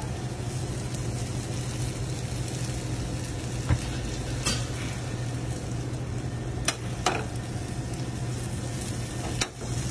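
Rice and black beans sizzling as they fry in a metal skillet over a gas burner, over a steady low hum. A metal spoon clinks and scrapes against the pan about five times as the rice is stirred.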